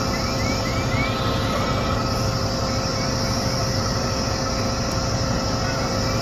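Steady rumble of a fire engine's diesel engine running its pump, with a constant hum and a few faint short rising chirps above it.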